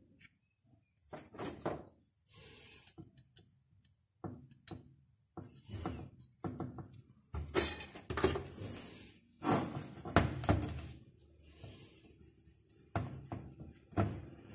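Irregular knocks, clicks and short scraping sounds of metal parts and tools being handled during work on a small two-stroke brush cutter engine.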